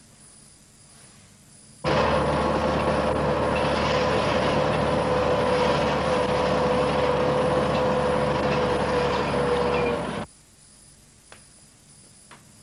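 Road traffic and a vehicle engine running steadily, with one steady tone through the noise. It cuts in sharply about two seconds in and cuts off just as sharply about eight seconds later, leaving faint room tone with a few light knocks.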